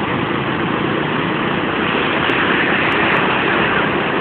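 Ocean surf: waves breaking and washing in, a loud, steady rush.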